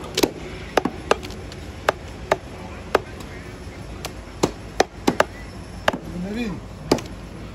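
Butcher's cleaver chopping buffalo meat on a wooden log chopping block: about ten sharp, irregularly spaced strikes.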